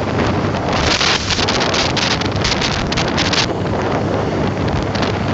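Wind rushing over the microphone of a motorcycle moving at highway speed. The hiss grows harsher from about a second in and eases a little before the end.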